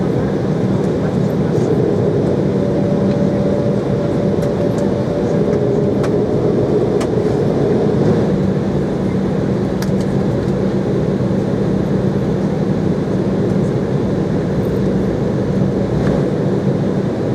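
Cabin noise inside an Embraer E-190 taxiing, its turbofan engines running at low taxi thrust with a steady hum and a few faint ticks and rattles.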